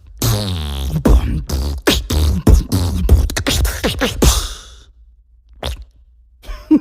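Beatboxed sound effect made with the mouth: a rapid run of sharp clicks and hits mixed with pitched vocal tones, some sliding down, for about four seconds. After a pause there is a single click, then a short pitched vocal burst at the end.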